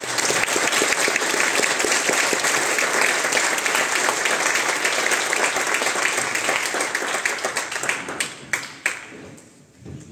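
Audience applauding: dense clapping that thins out to a few last scattered claps and dies away about nine seconds in.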